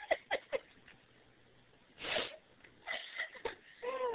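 A pet's heavy, wheezy breathing in short noisy bursts, the breathing of an animal out of breath after play. Near the end comes a short cry that falls in pitch.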